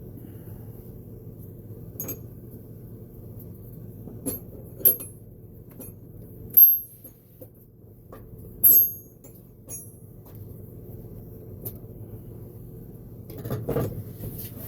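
Small metal parts and tools being picked up and set down on a workbench: a series of sharp, ringing clinks, the loudest about six and a half and nine seconds in, over a steady low hum, with a brief rubbing shuffle near the end.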